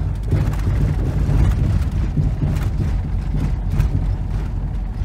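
Motorhome driving on a dirt road, heard from inside the cab: a steady low rumble of engine and tyres, with scattered ticks.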